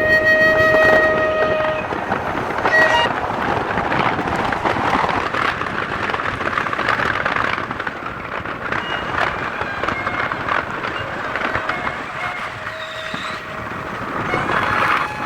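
Train horn sounding for about a second, with a shorter second toot a few seconds later, over the steady noise of a moving train.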